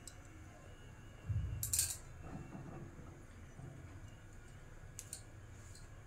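A nonstick kadai being shifted on the gas stove grate: a dull knock with a short scrape about a second and a half in, then a couple of faint clicks near the end. A faint steady low rumble runs underneath.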